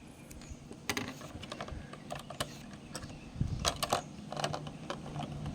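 Small plastic clicks and taps of Lego pieces being handled as a minifigure is pushed into a brick-built house. The clicks come irregularly, with a cluster of louder ones a little past the middle.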